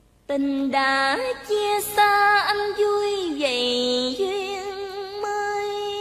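A woman's voice singing a long, sliding melodic line with vibrato in Vietnamese tân cổ style. It starts suddenly just after a short silence and holds steady notes with wavering ornaments.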